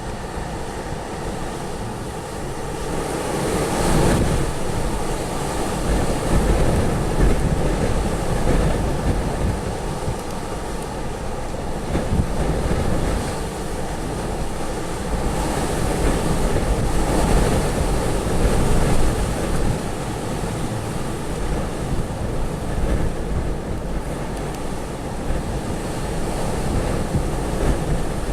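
Storm-force wind gusting hard, an even rushing noise that swells and eases in long gusts, with the heaviest surges about four seconds in and again past the middle. Wind buffets the microphone, adding a low rumble.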